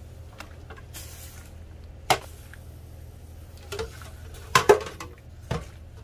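Dishes and cutlery clinking and clacking: one sharp knock about two seconds in and a few louder ones near the end, over a steady low hum.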